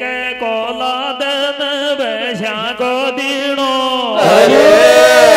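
Male folk singer singing a Meenawati geet into a microphone over a PA, with a loud held note about four seconds in that bends and falls away.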